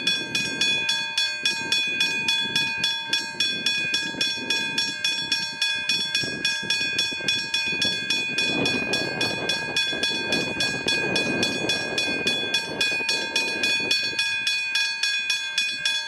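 Level crossing bell ringing steadily at about three strikes a second, with a train rumbling past about halfway through.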